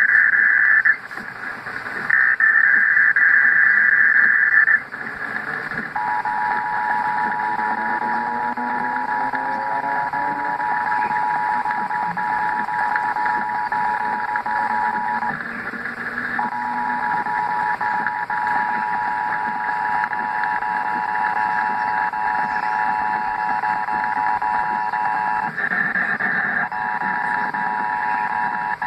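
Emergency Alert System test tones over broadcast audio. Two buzzy digital header bursts come in the first five seconds, then the steady two-tone EAS attention signal follows. It breaks off briefly twice, with a short buzzy burst near the end.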